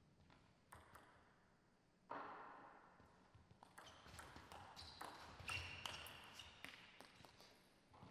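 Table tennis rally: the ball clicking sharply off the rackets and the table in quick, irregular succession, faint and with a slight ring. It opens with a few isolated ticks and a short rush of noise, and the hits come thick from about four seconds in, then stop near the end.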